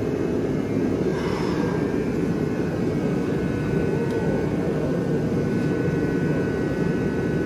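Steady, loud low rumble of running machinery, with a faint high hum above it and no distinct knocks or events.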